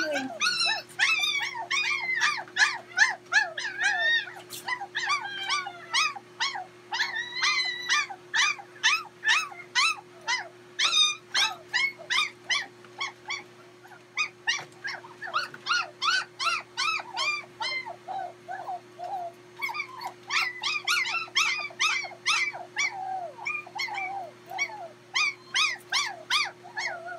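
Poodle puppies whimpering and yelping in a rapid run of short, high cries that bend up and down in pitch, easing off briefly about two-thirds of the way through. A steady low hum runs underneath.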